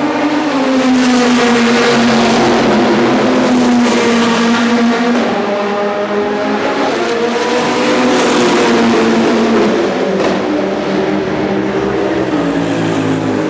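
Several race cars passing at racing speed, their engine notes overlapping and rising and falling in pitch as they accelerate and come off the throttle, with a sharp crack about ten seconds in.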